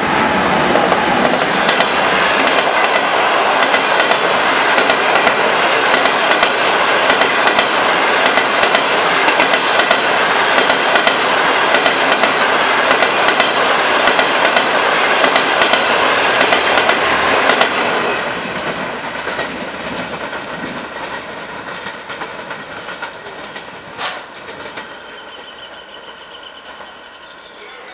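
A diesel-hauled passenger train of 14 coaches passing close by at speed: a loud, steady rumble with wheel clatter on the rails. It fades gradually after about 18 seconds as the last coaches move away. A single sharp click about 24 seconds in.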